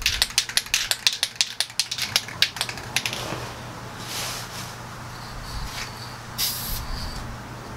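Aerosol can of spray lacquer being shaken, the mixing ball inside rattling rapidly for about three seconds, then two short sprays of hiss, the second about two seconds after the first.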